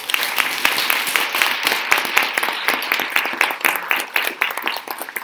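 Audience applauding, many hands clapping at once, starting to die down near the end.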